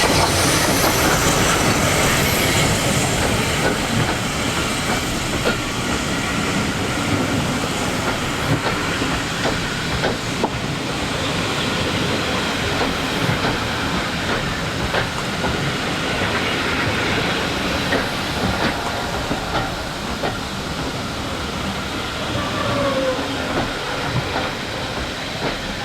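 Steam-hauled train running on the line, its wheels clicking over the rail joints under a steady rumble, with a short falling wheel squeal near the end.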